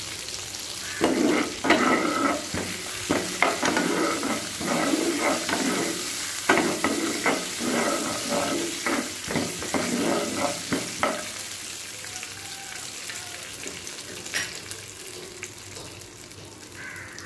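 Spatula stirring and scraping roasted gram and whole spices around a non-stick pan in sizzling coconut oil, in irregular strokes. The stirring stops about eleven seconds in, leaving the oil's quieter sizzle.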